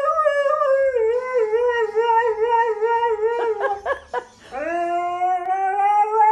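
Husky howling: one long wavering howl that drops in pitch about a second in, a few short broken cries around three and a half seconds in, then a second long howl rising slightly in pitch.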